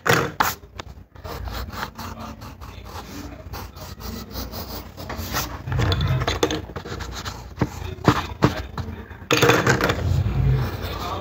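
Graphite pencil scratching and rubbing on paper while a drawing is shaded in, broken by short clicks and knocks. The sound gets louder about a second before the end.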